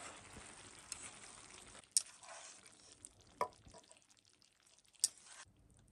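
Faint sizzling of stir-fried pork and cabbage in a pan on a camping gas stove that has just been switched off, dying away over the first couple of seconds. Then three sharp clicks of utensils against cookware.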